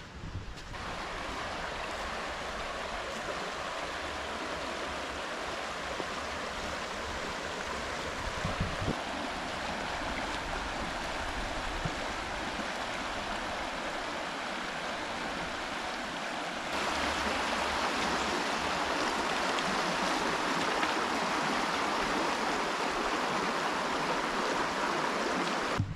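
White Clay Creek, a shallow stream, rushing steadily over a rocky riffle; the sound steps up louder about two-thirds of the way through.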